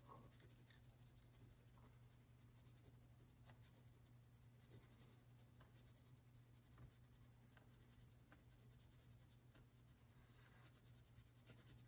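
Faint, scratchy strokes of a crayon being rubbed back and forth on paper as an area is coloured in, over a steady low room hum.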